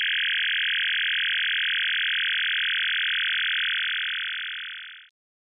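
Steady electronic buzzing tone, fairly high and unchanging, used as a sound effect for an animated computer-terminal intro. It fades away over about the last second.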